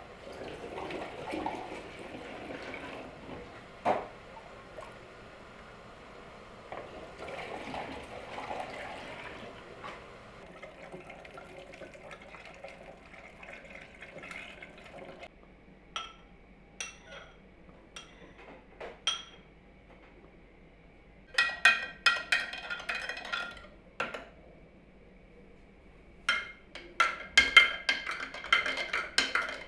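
Thin white dairy liquid pouring from a metal pot through a plastic funnel into a glass jar. After that, a metal spoon clinks and scrapes against the glass jar, with single clicks and then two quick runs of ringing clinks near the end.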